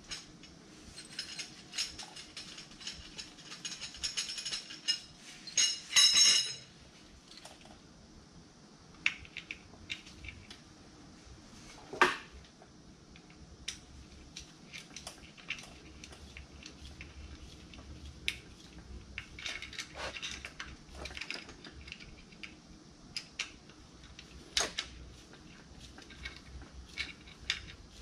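Metal hand tools clinking, tapping and scraping at the crankshaft nose and front seal housing of a 6.7 Cummins ISB engine. A run of ringing metallic clinks in the first six seconds, a sharp knock about twelve seconds in, then scattered lighter clicks.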